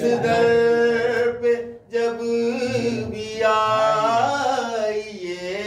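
A man's unaccompanied voice chanting devotional verse in a sung style, holding long steady notes, with a brief break about two seconds in.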